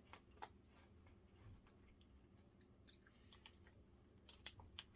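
Near silence with faint, scattered crunches and clicks of crunchy baked cheese snack sticks being chewed, with a few sharper clicks near the end.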